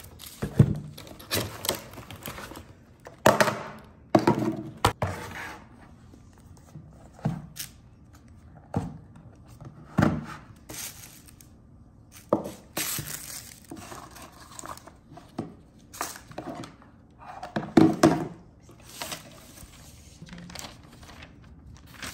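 Unpacking noises from a ring light and its box: irregular knocks as parts are set down on a table, with rustling and crinkling of cardboard and plastic wrapping between them.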